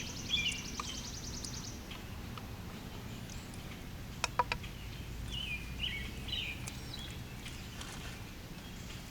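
Birds singing in short chirping phrases, with a fast high trill through the first two seconds, over a steady low background hum. Three quick clinks sound about four seconds in.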